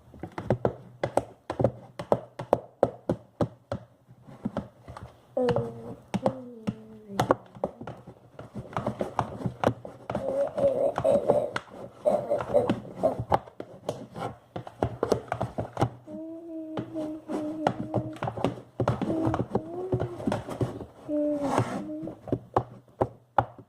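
Slime being stirred in a pot: a rapid, irregular run of sticky clicks and squelches as the mixture thickens.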